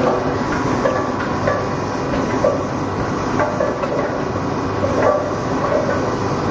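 Automatic plastic bottle cap assembling and slitting machine running: a steady mechanical clatter with knocks about once a second.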